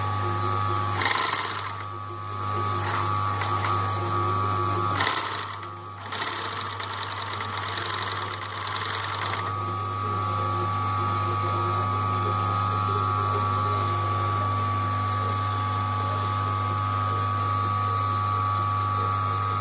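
Class 10-B furrier's (fur) sewing machine stitching a fabric strip in two runs, briefly about a second in and again from about five to nine seconds in, a fast rhythmic ticking of the needle mechanism. Between and after the runs its electric drive motor keeps running with a steady hum.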